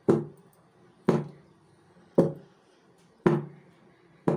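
Round steel cake tin full of rava cake batter being tapped, five knocks about a second apart, each ringing briefly. The tapping knocks the air bubbles out of the batter before baking.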